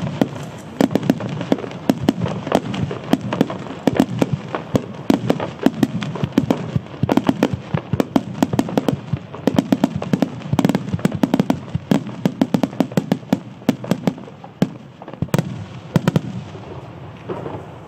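Starmine fireworks barrage: shells launching and bursting in rapid succession, sharp cracks and bangs several times a second, dying away near the end.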